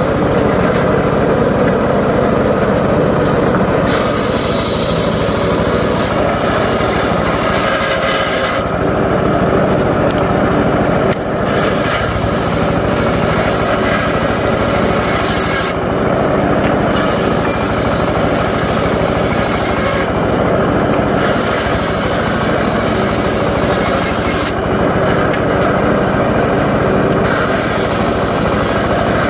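A homemade engine-driven circular saw running steadily and cutting timber in repeated passes. A harsh high whine of the blade in the wood rises over the engine drone for three to four seconds at a time, about five times.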